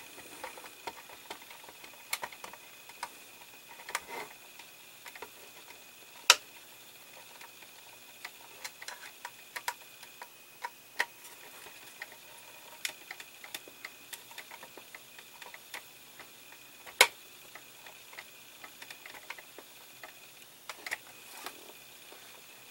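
Irregular small clicks and ticks of a hand screwdriver turning small screws into a plastic model floor panel, with a couple of sharper clicks about 6 and 17 seconds in.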